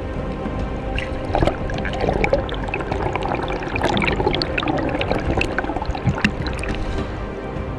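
Water sloshing and bubbling around an underwater camera, with many scattered clicks and knocks, as a speared fish on a line moves against the camera.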